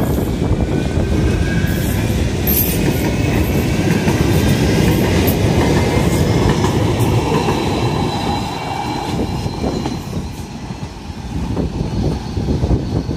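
Manchester Metrolink M5000 tram running into the stop, a loud, steady rumble of wheels on rail with a faint high whine over the first few seconds. The rumble eases off about eight seconds in as the tram slows.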